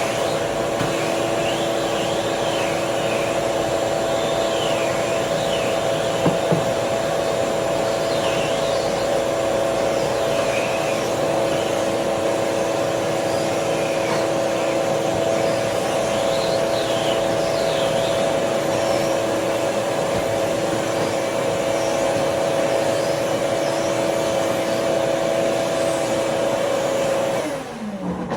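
Vacuum cleaner running steadily with a constant hum, switched off near the end, its motor winding down in falling pitch.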